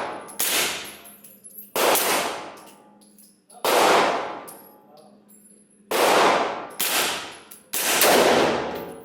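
About six gunshots fired at an unhurried pace, one every one to two seconds, each with a sharp crack and a long reverberant tail.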